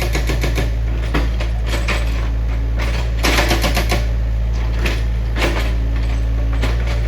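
Heavy machinery's diesel engine running with a steady low drone, overlaid by irregular sharp knocks and clattering.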